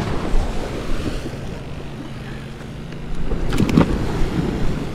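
Wind buffeting the microphone over a low steady rumble, with a short cluster of sharp knocks about three and a half seconds in.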